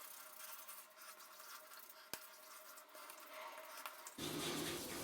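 Faint squishing and rubbing of hands working pre-shave cream into the skin of the face, with a single sharp click about two seconds in and a louder rustling from about four seconds in.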